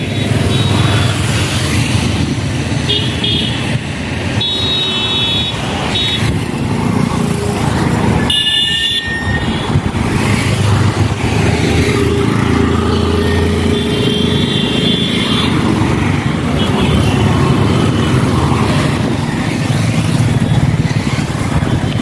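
Road traffic with auto-rickshaw and motorbike engines running close by, and vehicle horns beeping briefly several times.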